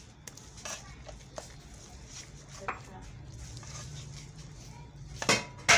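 A spatula scraping and tapping against a pan as thick besan halwa is stirred, a run of faint clicks over a low steady hum. Near the end comes a loud, sudden noise.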